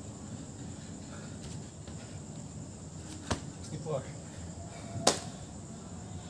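Two sharp slaps about two seconds apart, the second the louder, made by a man doing burpees. Under them runs a steady high, thin trill of night insects.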